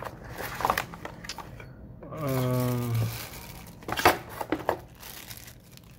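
Packaging and box contents being handled: short rustles and light knocks, the sharpest about four seconds in. A drawn-out hesitation vowel from a voice is held for under a second about two seconds in.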